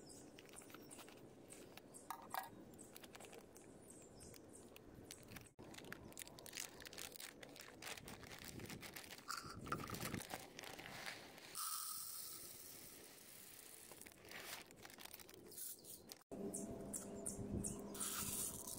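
Faint rustling and crinkling of a clear plastic bag of water spinach seeds as it is handled and snipped open with scissors. About twelve seconds in, a hiss of dry seeds pours into a plastic measuring jug for a couple of seconds and fades out.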